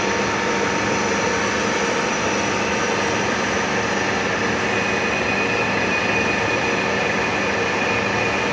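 Radial drilling machine running with a steady mechanical whirr; a faint high whine joins about halfway through.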